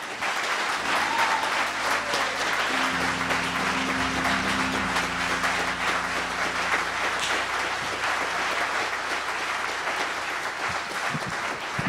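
Congregation applauding steadily while a keyboard instrument plays held, sustained chords underneath, the chords coming in about a second in and filling out about three seconds in.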